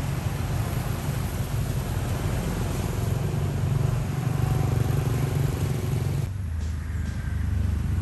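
Steady rumble of road traffic. About six seconds in, the sound changes abruptly to a deeper rumble.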